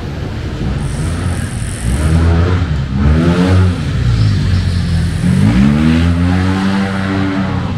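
A motor vehicle accelerating past in street traffic, its engine rising in pitch twice over a steady background hum of traffic.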